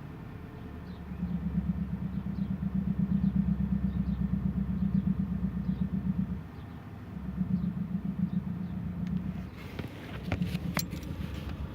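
Volkswagen Passat CC 2.0 TSI turbocharged four-cylinder engine running with a low throbbing knock that swells twice and eases between. This is the noise that appears as the clutch is let out to the biting point, and it persisted after the left engine mount was replaced. A few sharp clicks near the end.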